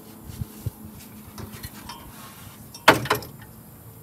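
Two sharp knocks in quick succession about three seconds in, after a few faint soft knocks.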